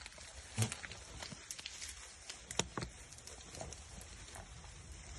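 Goats moving about in a pen: scattered sharp knocks and clicks, the loudest about half a second in and a pair near the middle, over a low steady rumble.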